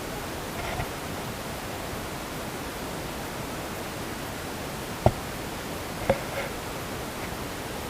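Steady hiss-like background noise with two short knocks about a second apart, a little past the middle.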